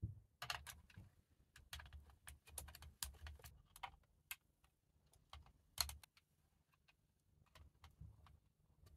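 Faint, irregular clicks and taps of LEGO Technic plastic pieces being handled and pressed together, with one louder click about six seconds in.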